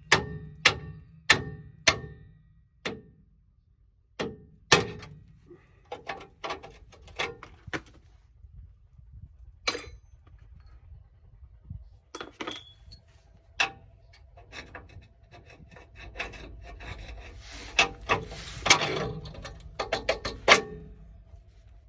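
Hammer striking a metal punch: a quick run of sharp, ringing blows for the first few seconds, then a few more strikes and scattered metallic clinks and scrapes of tools, with a cluster of clattering near the end.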